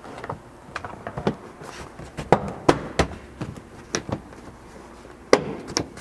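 Plastic interior trim panel of a 2012 Subaru Forester's cargo area being pressed into place, its clips snapping in and the panel knocking in a string of sharp clicks and taps, the loudest about two and a half to three seconds in and again past five seconds.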